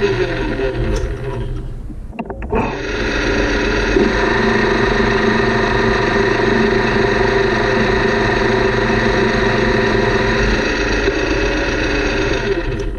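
Metal lathe running under a turning cut on a gear blank, a steady machine whine with many tones. The sound dips briefly about two seconds in, then runs steadily again.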